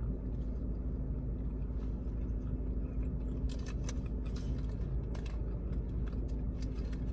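Steady low rumble and hum of a car interior, with faint chewing and scattered small clicks of someone eating.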